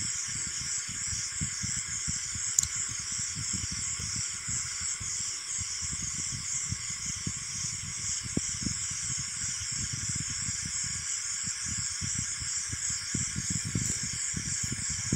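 Steady high-pitched hiss of background noise, with faint irregular low thuds underneath.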